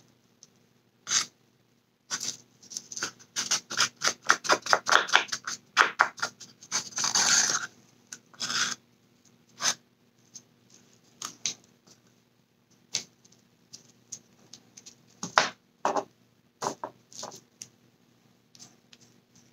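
A stir stick scraping resin out of a disposable cup. Quick scratchy strokes run densely for several seconds, then thin out to occasional scrapes and taps.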